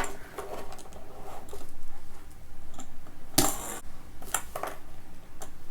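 Small plastic toy car from a Kinder Joy egg being launched from its launcher, with light plastic clicks and clatter. A louder rattling burst comes about three and a half seconds in.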